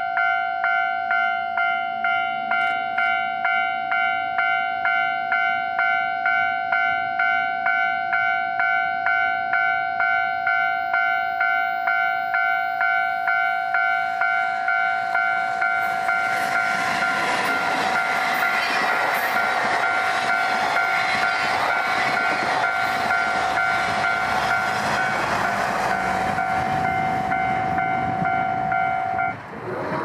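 Level-crossing warning bell ringing in a steady beat, just under two strikes a second; from about halfway an electric locomotive and its sleeping cars pass close by with a loud rush of wheel and rail noise while the bell keeps ringing. Everything cuts off abruptly near the end.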